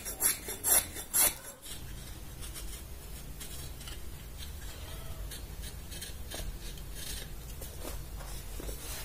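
A small hand plane shaving a pine block in quick, sharp strokes, three in the first second and a half, roughing out the fuselage of a carved model. Then quieter, light scraping cuts of a small knife whittling the wood, over a faint low hum.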